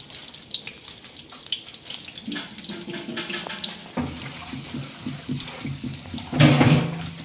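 Water running and splashing steadily, with faint clinks and voices in the background that grow louder near the end.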